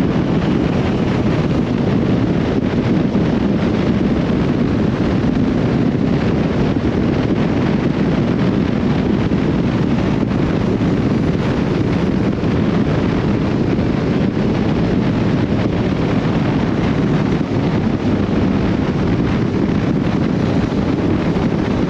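Steady wind rushing over the action-camera microphone while riding a Honda CB1300SB motorcycle at speed, with a low rumble of engine and road noise beneath.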